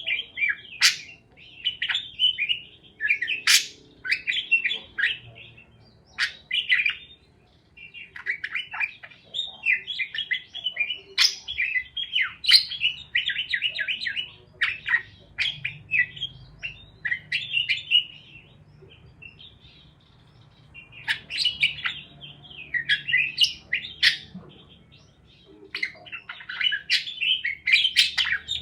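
Parakeets chirping in quick runs of short chirps, with a few brief pauses between runs.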